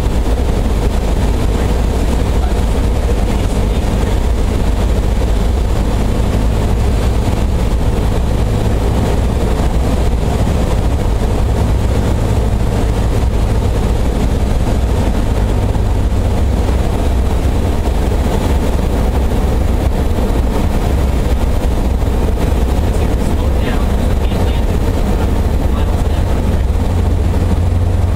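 Steady drone of a small single-engine propeller airplane's piston engine and propeller in flight, heard from inside the cabin.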